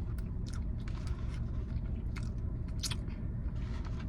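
Close-up chewing and biting of a hot dog, with a few short wet, crisp mouth clicks.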